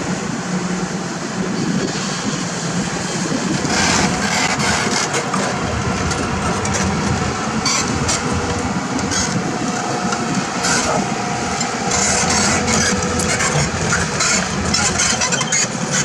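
Heavy diesel excavator engines running under load, with repeated metallic clanks and rattles from about four seconds in.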